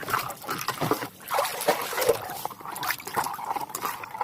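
Water sloshing and splashing as a toy is washed by hand, with scattered light knocks.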